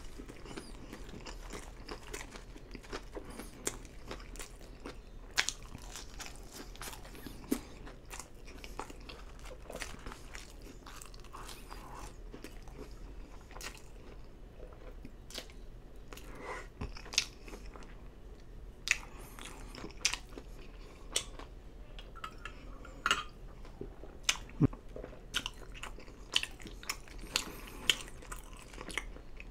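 Close-miked chewing of French fries: irregular mouth clicks and smacks, more frequent in the second half.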